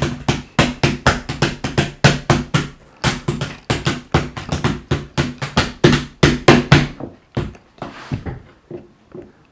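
Heavy, hammering keystrokes on a laptop keyboard, about three or four a second, each with a dull thud. They thin out and stop near the end.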